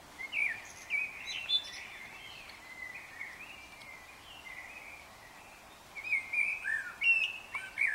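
A songbird singing in short warbling phrases of quick, gliding chirps, falling quieter in the middle and starting up again loudly near the end.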